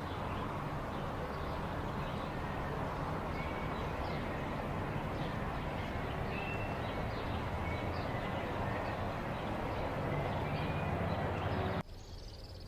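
Outdoor ambience: a steady low rumble under scattered short bird chirps. It cuts abruptly to a quieter background near the end.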